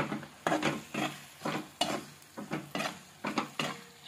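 A metal spoon scraping around a nonstick kadhai as it stirs a frying onion-tomato masala, in quick strokes about two to three a second, over a light sizzle from the oil.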